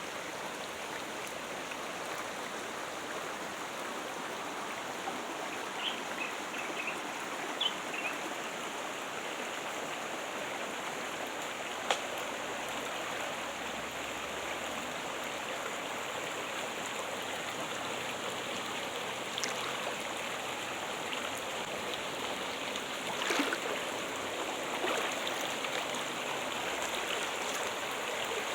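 Water trickling and splashing steadily, like a small stream, with a few brief drips and splashes standing out.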